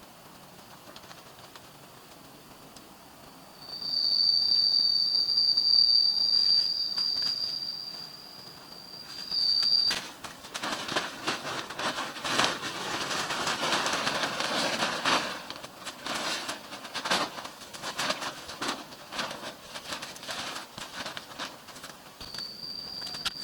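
Cicada calling: a high, steady whine starts a few seconds in, switches at about ten seconds to a louder, harsh rattling buzz, and the whine returns near the end.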